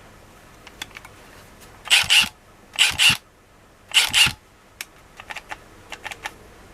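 Milwaukee M12 FUEL 1/2" compact impact wrench run free in three short trigger pulls about a second apart, each a brief spin-up and stop. Small plastic clicks of its speed-selector button come between and after the pulls.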